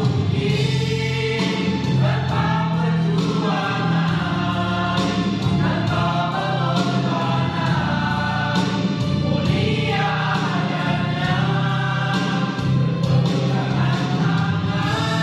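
Mixed choir of men's and women's voices singing together, over sustained low notes from an electronic keyboard accompaniment.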